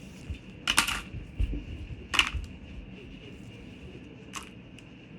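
Handling noises: three short, sharp clicks or rustles, the loudest about a second in and another about two seconds in, with a fainter one near the end.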